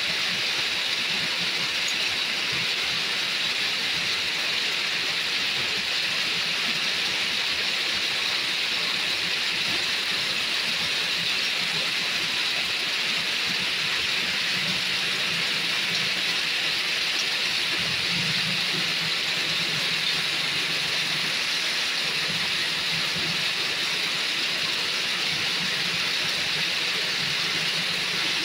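Heavy rain falling steadily, an even hiss of a tropical downpour on wet ground and puddles.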